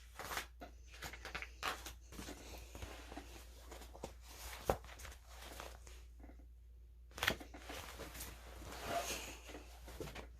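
Faint rustling of paper pages as a book is handled and opened, with scattered sharp clicks and knocks, the loudest about halfway through.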